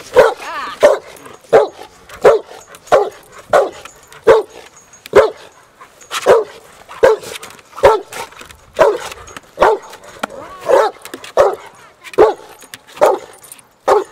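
Rottweiler barking over and over at a helper agitating it in protection training, a regular run of about twenty barks, roughly one every 0.7 seconds.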